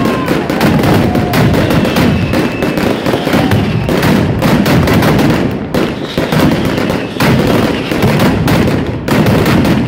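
Pyrotechnic traca: a string of firecrackers going off in rapid, unbroken succession, a dense, loud rattle of bangs with brief whistling tones in the first three seconds.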